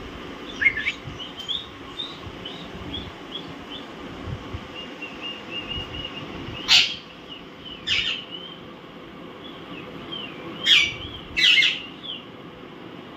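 Alexandrine parakeets calling: a run of soft, short chirps, then four loud, harsh squawks about seven, eight, eleven and eleven and a half seconds in.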